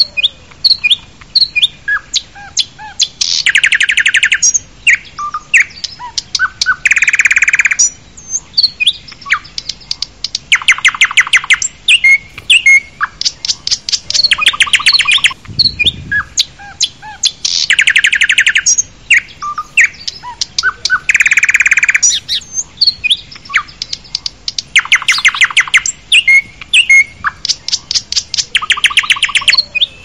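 Small birds chirping and twittering. A loud trilled rattle lasting about a second comes back roughly every three and a half seconds, with short chirps in between.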